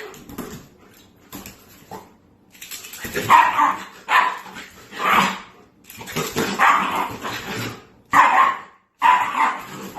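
A dog barking repeatedly: a run of short, loud barks starting about three seconds in, after a few quieter noises.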